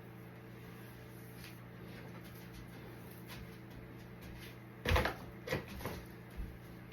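Steady low hum, then about five seconds in a few short rustles and crinkles of ribbon being pushed and twisted into artificial Christmas tree branches.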